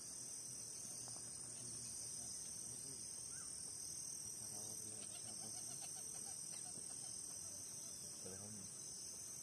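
Steady, high-pitched chorus of insects in marshy grassland, with faint voices in the background.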